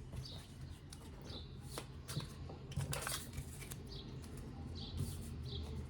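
Tarot cards being shuffled by hand: a run of soft rustling and short clicks as the cards slide and tap together.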